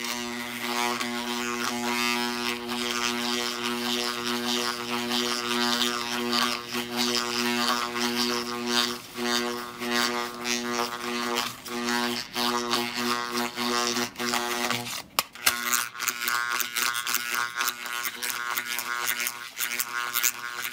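Radio Shack bulk tape eraser's electromagnet humming loudly, waxing and waning as it is circled over a 3.5-inch floppy disk to erase it. About fifteen seconds in the hum drops out for a moment, then comes back as a buzz with a rapid rattle.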